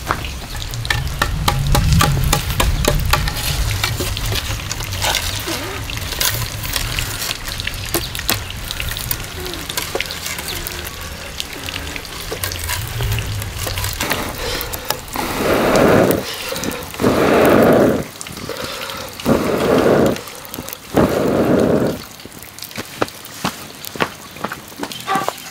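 Split firewood burning in a hollowed tree stump, crackling and popping, with a low rumble under the first half. Just past the middle come four long puffs of breath blown into the embers to fan the fire that is burning out the stump's hollow for a rice mortar.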